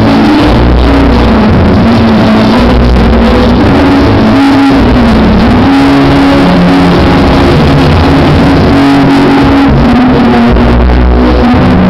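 Loud music over a hall's sound system, overloading the microphone. A melody of long held notes moves over a steady bass.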